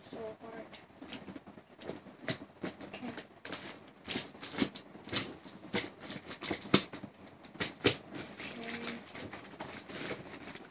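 Large scissors cutting and scraping at a cardboard box to get it open: a run of irregular snips, clicks and scrapes.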